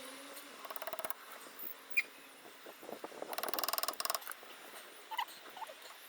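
Two short squeaky rasps of metal working against metal on the gear lever, the second one longer, with a few sharp clicks between them, as the gear knob is worked to get it off.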